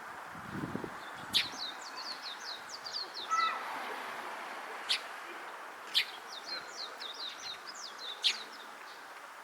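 Eurasian tree sparrows chirping: sharp single chirps at irregular intervals, and twice a quick run of short, falling high notes, over a steady faint background hum.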